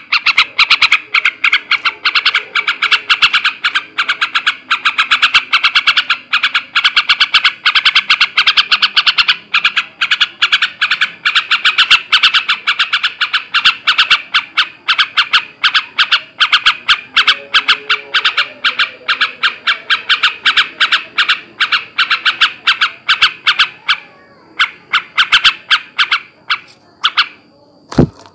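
Male yellow-vented bulbul (trucukan) giving a long, loud chattering run: fast repeated short notes, many a second, with a couple of brief breaks near the end.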